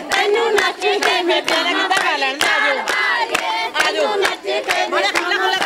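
Crowd of women singing Punjabi folk boliyan together for giddha, many voices at once, over steady rhythmic hand clapping.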